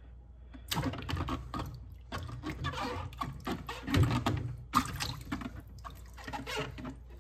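Water sloshing and splashing in a plastic bowl as hands scrub and squeeze an empty plastic ketchup bottle under the water, with rubbing and crinkling of the plastic in irregular bursts. The loudest slosh comes about four seconds in.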